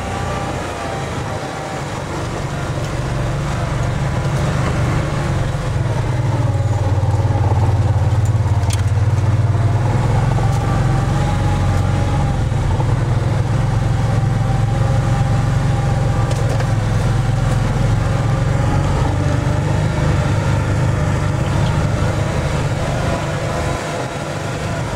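ATV engine running steadily while the four-wheeler drives along, heard from aboard; it gets louder over the first few seconds and then holds an even hum.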